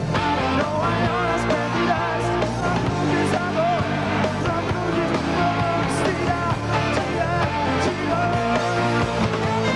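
Live rock band playing: a male lead vocal sung over electric guitars, keyboards and drums.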